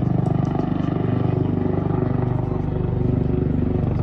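A steady, low engine drone with a fast even pulse, running without change.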